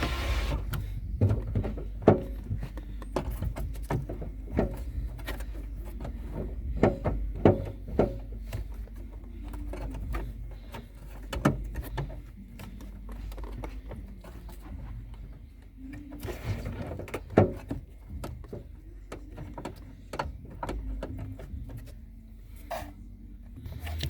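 Irregular clicks, knocks and light rattles of metal parts and a hand tool being worked inside an opened car door, around the door lock and its rod linkage, over a low steady rumble.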